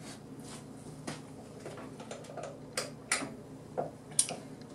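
About ten light, irregular plastic clicks and taps, the loudest a little before three seconds in, just after, and near the end: a computer mouse being clicked and handled while working through the calibration software's checklist. A faint steady hum sits underneath.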